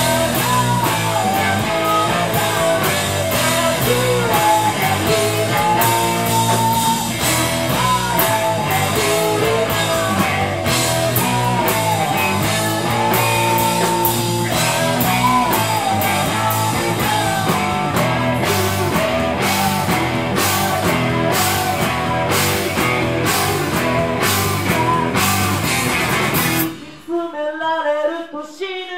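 A punk rock band playing live: electric guitar, bass and a drum kit with cymbals, with a male lead singer. Near the end the band drops out for a moment, leaving the singing voice alone.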